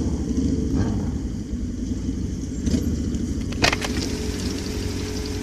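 Motorcycle engine running steadily while riding, with one sharp click about three and a half seconds in.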